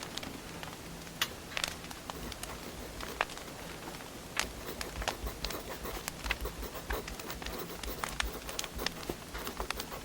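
Wood fire burning, with irregular crackles and pops over a soft steady hiss and a low rumble.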